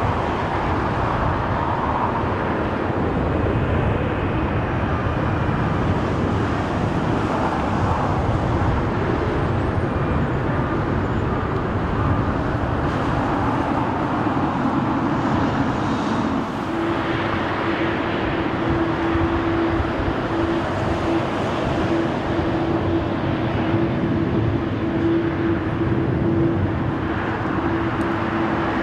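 Jet airliner engines running with a steady rumble. A steady droning tone joins in a little over halfway through.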